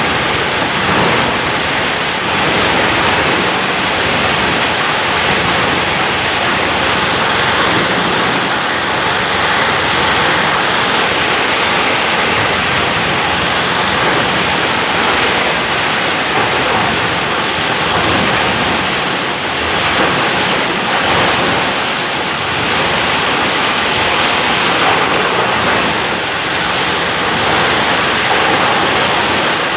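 A 30-inch plastic scrap grinder running, a loud, steady rushing noise without pauses.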